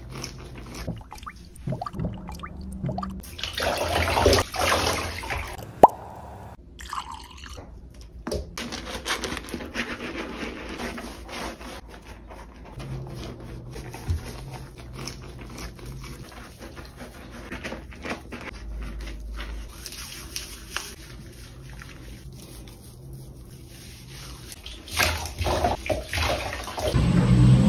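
Water dripping and splashing in a bathtub while a puppy is bathed, with irregular rubbing and small knocks from the scrubbing. Near the end it gets louder as water is poured over the puppy's head to rinse it.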